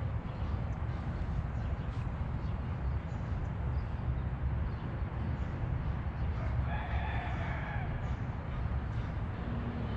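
A steady low rumble, with one bird call lasting about a second and a half, about seven seconds in.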